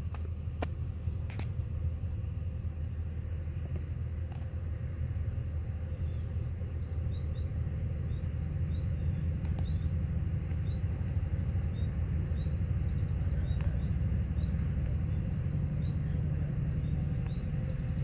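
Outdoor ambience: a steady high-pitched insect trill with a low rumble underneath and faint short chirps scattered through it.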